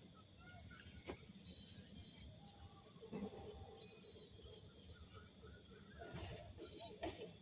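Steady high-pitched insect drone of crickets, with scattered short, faint chirps of small birds.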